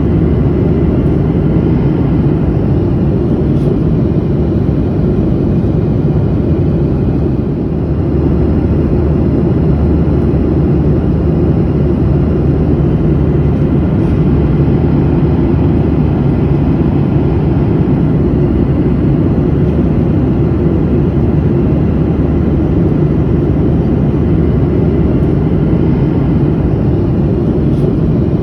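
Steady low rumble of an airplane in flight, heard from inside the passenger cabin: an even roar of engines and rushing air, strongest in the low end with a faint steady hum underneath.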